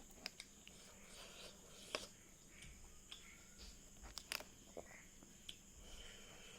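Near silence with faint eating sounds: a handful of soft, sharp clicks from chewing and the mouth, the clearest a pair about four seconds in.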